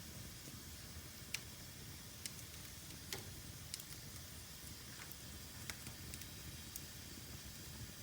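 Fire in a fireplace crackling: a faint, steady low rush broken by scattered sharp pops, about seven or eight at irregular intervals.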